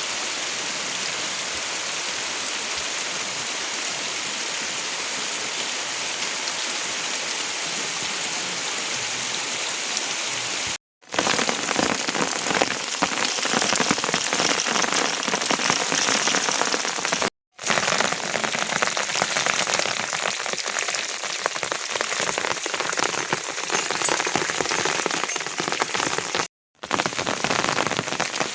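Steady rain falling, heard in several stretches separated by brief silent breaks. After the first break, about a third of the way in, individual drops hitting a surface stand out more sharply in the rain.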